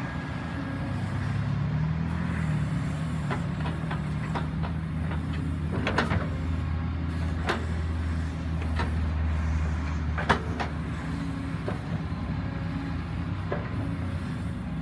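Heavy machinery's diesel engine running steadily, with several sharp knocks and clanks over it; the loudest comes about ten seconds in.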